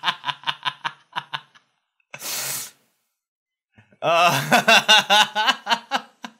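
Men laughing in quick rhythmic pulses that die away about a second and a half in, a short breathy burst about two seconds in, then a pause and a second bout of laughter from about four seconds in.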